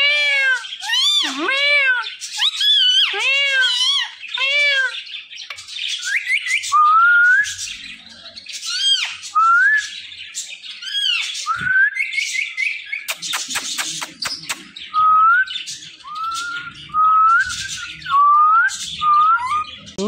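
Caged rose-ringed parakeets calling: a fast run of repeated arched calls, about two a second, over the first five seconds, then short rising whistles scattered through the rest. A quick series of sharp clicks comes a little after the middle.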